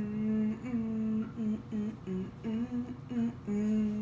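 A woman humming a short wordless tune: a string of separate notes that step up and down, ending on a longer held note.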